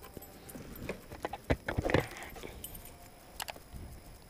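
A bunch of keys jangling and clicking as the scooter's ignition key is handled and taken out, with a few scattered light knocks.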